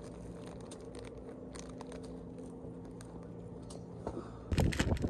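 Faint crunching and crinkling as a packaged snack is eaten, with scattered light clicks over a steady low hum. About four and a half seconds in, a sudden loud low rumble takes over.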